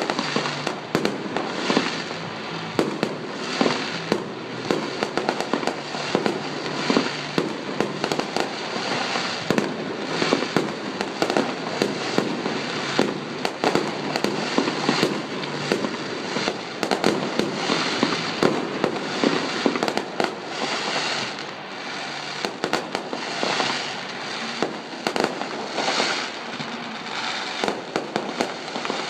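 Fireworks going off in a continuous barrage of bangs and crackles, many reports overlapping with no pauses.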